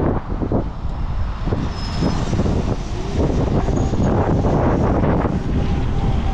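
Wind rushing and buffeting over the microphone with road and traffic noise during a motorbike ride in traffic.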